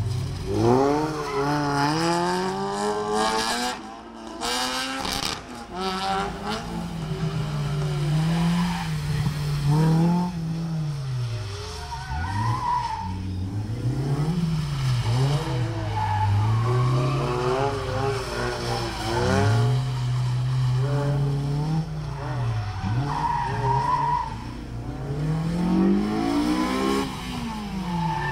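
Sports car engines, a Lotus and then a Honda S2000, revving hard and dropping back again and again through a tight autotest course, with a few short tyre squeals.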